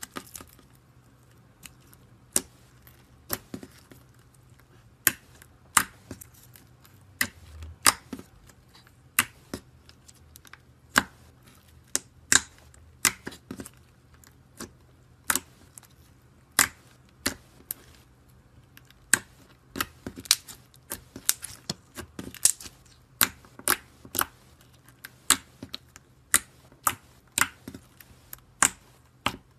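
Glossy white slime being pressed and squeezed by fingers, giving sharp, irregular clicking pops, about one or two a second, as air pockets in it burst.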